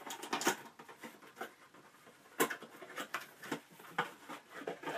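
Cardboard box and tissue-paper packing being handled: rustling and crinkling with a string of sharp snaps and taps, the loudest about two and a half seconds in.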